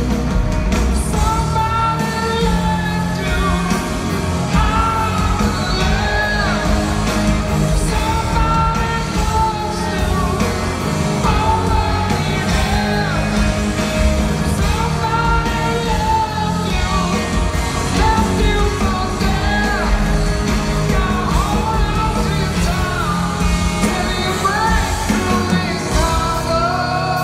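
Live rock band playing, with electric guitars, bass and drums under a man singing a sliding, held melody, heard from the audience in a large theatre.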